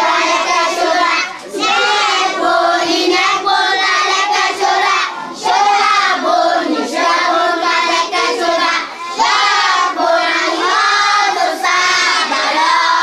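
A group of children singing together in short phrases, with brief breaks between phrases.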